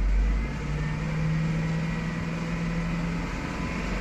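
Hummer H2's 6.0-litre LQ4 V8 engine held at raised revs, running steadily, with a hydraulic lifter knocking.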